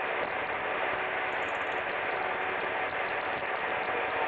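Steady wind-and-sea noise aboard a small fishing boat, with a faint steady engine hum underneath.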